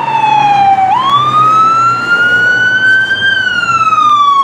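Ambulance siren in a slow wail. The pitch falls, jumps back up about a second in, climbs steadily for a couple of seconds, then falls again.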